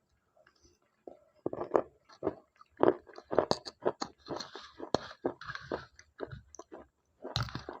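Close-miked chewing of crunchy slate pencil: after a second of near silence, a quick run of crisp, irregular crunches and bites.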